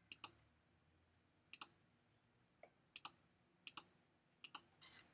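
Faint clicks of a computer mouse, about five in all, each a quick double tick of button press and release, spaced roughly a second apart as listing photos are stepped through one at a time.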